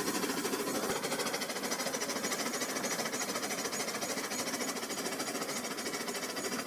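Battery-powered toy train's small electric motor running steadily, with a fast, even rattle.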